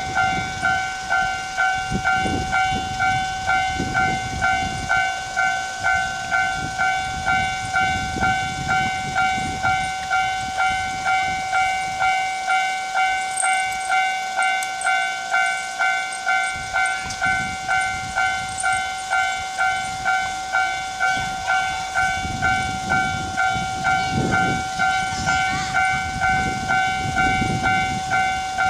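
Japanese railway level crossing's electronic warning bell ringing in a steady, even beat, a little under two rings a second, under irregular low rumbling that grows heavier in the last third.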